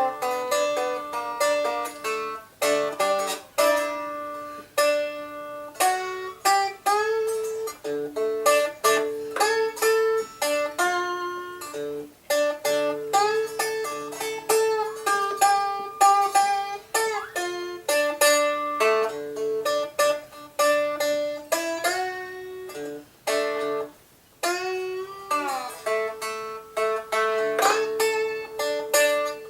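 Havana Honeys cigar box guitar played acoustically with bare fingers, an instrumental blues passage: a run of plucked notes over steady ringing drone tones, some notes sliding up or down in pitch.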